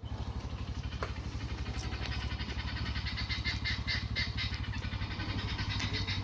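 An engine idling with a steady, fast low chugging. From about three seconds in, short high-pitched cries repeat over it, a few each second.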